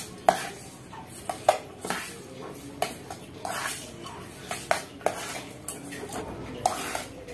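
A metal utensil stirring and tossing boiled instant noodles with their seasoning in a stainless steel pot. Irregular sharp clinks, roughly one a second, come from metal striking the pot's sides, over a steady scraping.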